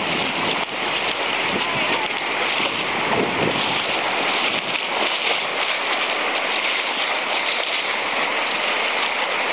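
Fast, shallow river rushing over rocks and riffles: a steady rush of white water.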